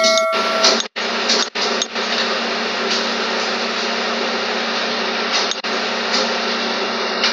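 A steady hum and hiss, like a running machine or fan, with a few scattered clicks.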